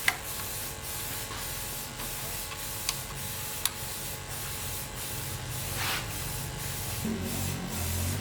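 Steady hissing noise with a few sharp clicks.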